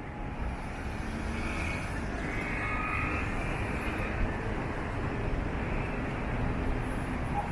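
Steady low engine rumble, swelling during the first second and then holding.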